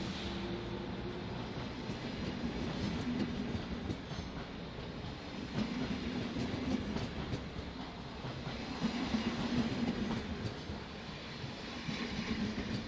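NS DD-AR double-deck coaches rolling past close by as the train pulls out, wheels clattering on the rails with a steady rumble. The rumble swells every few seconds as each set of wheels passes.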